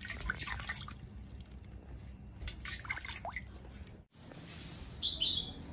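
Water splashing and dripping in a metal basin as a baby monkey is bathed in it. After a cut about four seconds in, a short high-pitched squeak is heard.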